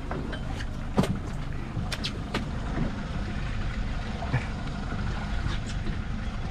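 Fishing boat's engine running with a steady low rumble, with a few short sharp clicks about one and two seconds in.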